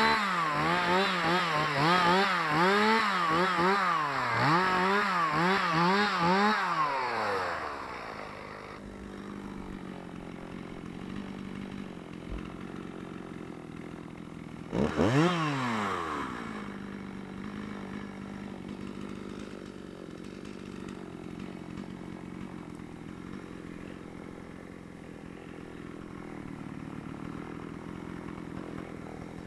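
Two-stroke chainsaw running at high revs, its pitch rising and falling over and over, then dropping to idle about seven seconds in. Halfway through it gives one quick rev and falls back, and it idles steadily for the rest.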